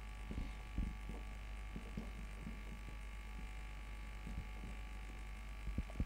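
Faint soft taps and rubbing of a marker writing on a whiteboard, over a steady low electrical hum.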